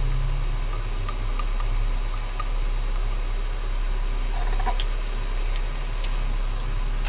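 Tamarind extract with its tempering simmering in a pan on medium flame, cooking down into pulihora paste. Small bubbles pop with scattered light ticks, a few together about four and a half seconds in, over a steady low hum.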